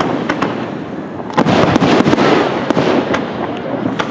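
Fireworks display: aerial shells bursting in quick succession, many sharp bangs close together, with a fresh, louder cluster of bursts about a second and a half in.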